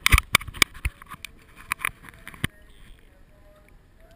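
A quick run of sharp knocks and clatter over about two and a half seconds as the kayak-mounted action camera is handled and turned, then it settles to a low background.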